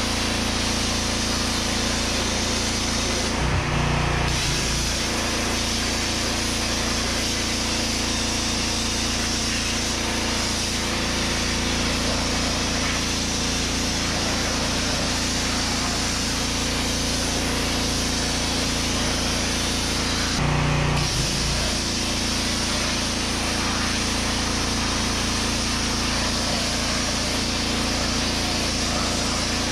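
Petrol pressure washer with a 13-horsepower engine running under load while its gun drives water and sand through a wet-blasting attachment, a steady hiss of spray over the engine hum. Twice, about four seconds in and about twenty seconds in, the spray cuts out for about a second and the engine note changes.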